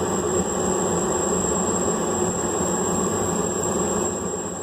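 Steady roar of a running forge, fading out near the end.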